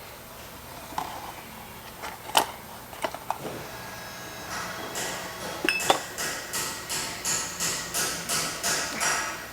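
A few sharp metal clicks and taps from handling brake caliper parts, then background music with a steady pulsing beat of about two beats a second comes in about halfway through.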